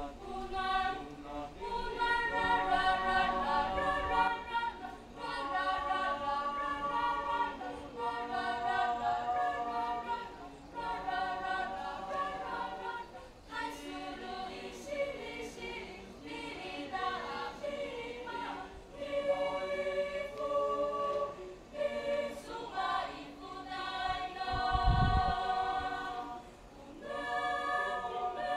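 A mixed choir of teenage boys and girls singing a traditional Taiwanese indigenous mother-tongue song a cappella, in held phrases with short breaths between them.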